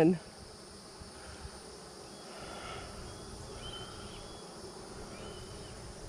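Honeybees buzzing steadily around an open hive frame over a high insect chirring, with a distant hawk crying faintly two or three times.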